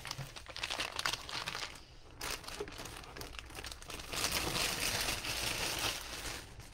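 Clear plastic packaging crinkling and rustling as it is handled and pulled out of a cardboard box, growing denser and louder from about four seconds in.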